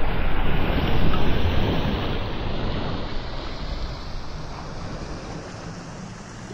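Wind buffeting the microphone over small waves washing onto a shingle beach; the noise eases off over the last few seconds.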